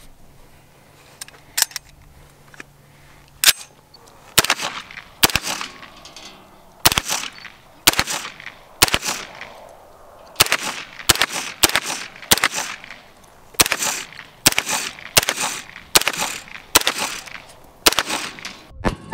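A 9mm AR-9 carbine is fired semi-automatically in a long string of single shots, roughly one to two a second, each with a short ringing tail. A few lighter clicks of the gun being handled come before the shooting starts.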